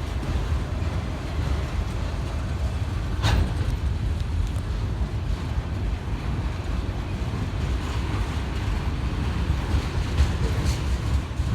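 CSX intermodal freight train's cars rolling past on the rails, a steady low rumble, with one sharp clack about three seconds in.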